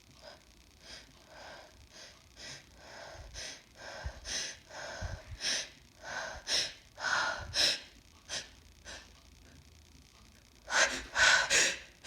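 A woman's quick, short sniffing and gasping breaths grow louder over several seconds. After a brief pause come three sharp, loud gasps near the end. This is the build-up to a sneeze brought on by chhinkni sneezing powder.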